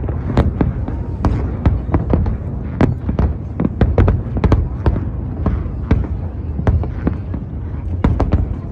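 Fireworks going off in quick succession, several sharp bangs a second over a steady low rumble.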